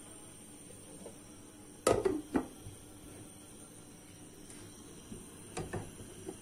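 A glass lid set down on a cooking pot: two clanks about two seconds in, each ringing briefly, then a few lighter knocks near the end, over a faint steady hum.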